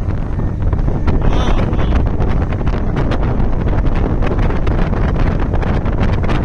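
Heavy wind buffeting on the microphone of a small motorboat moving at speed, over the low, steady noise of the boat running across the water.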